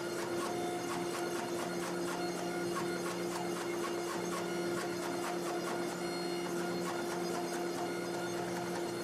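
Hydraulic forging press running, a steady hum from its pump and motor with a fast, even ticking, as its flat dies squeeze a canister billet at forge-welding heat.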